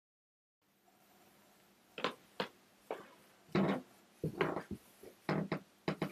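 A person stepping onto carpeted stairs and sitting down: a run of about eight soft, irregular thuds and rustles, starting about two seconds in after a moment of dead silence.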